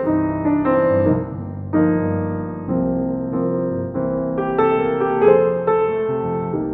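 Background music: a piano playing a slow run of sustained notes.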